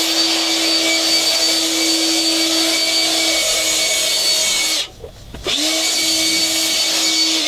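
Ridgid cordless handheld leaf blower running steadily, blowing water off a freshly washed boat rub rail. It cuts out for a moment about five seconds in, then spins up again and runs on.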